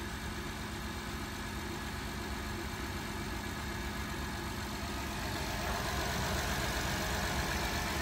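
Honda Odyssey's V6 idling steadily and smoothly, its rocker arm oil pressure switches (fault code P3400) replaced and the oil fresh. It gets slightly louder about five seconds in.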